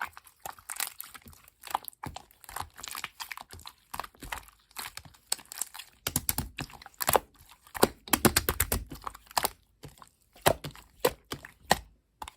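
Clear slime being squished, pressed and stretched by hand, giving irregular rapid clicks and pops that come thickest in the middle.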